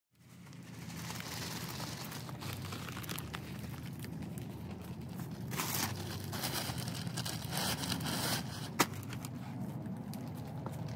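Plastic bag of potting soil crinkling and tearing as it is handled, opened and emptied into the bed, with a sharp click about nine seconds in.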